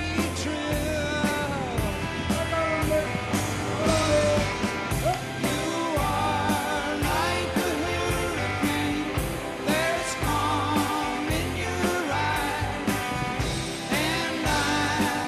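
Rock song with sung vocals over guitar and a steady drum beat.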